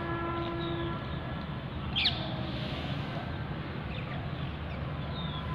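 Birds calling outdoors, with one sharp, loud chirp about two seconds in and a few fainter chirps, over a steady low rumble.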